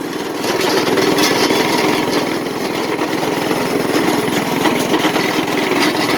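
Yerf Dog go-kart's small single-cylinder engine running under throttle as the kart drives on, getting louder about half a second in and then holding steady.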